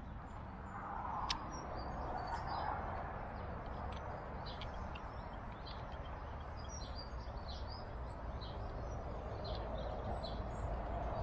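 Small woodland birds calling with many short, high chirps and tweets over a steady low background noise, with one sharp click about a second in.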